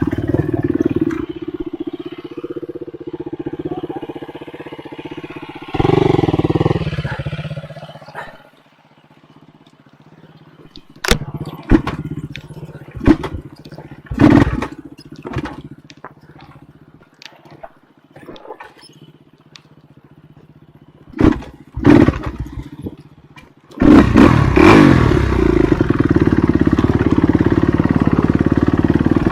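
Enduro dirt bike engine running, then dropping away to a quiet stretch broken by scattered sharp knocks and clatters. Loud engine running again from about four-fifths of the way in.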